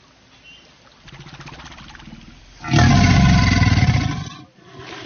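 Large crocodilian growling up close: a low, rattling growl swells about halfway through into a loud, deep growl lasting about a second and a half, then a softer growl near the end.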